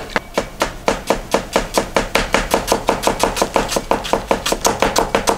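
Kitchen knife finely slicing myoga into thin strips on a cutting board: quick, even taps of the blade on the board, about six a second.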